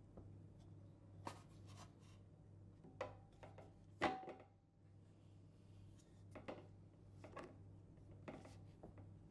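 Small wooden box being handled: a few light clicks and taps, then its lid shut with a sharp knock and a brief ring of its metal clasp about four seconds in, the loudest sound, followed by several more faint taps, over a faint steady low hum.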